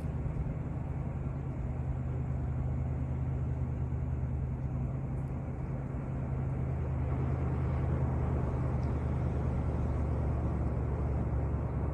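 A motor vehicle's engine running steadily as a low hum under a rushing wash of noise. The sound grows a little louder about seven seconds in.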